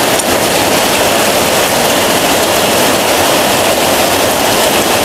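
Heavy rain pouring down in a steady, even hiss, with water running off a roof and splashing onto the ground.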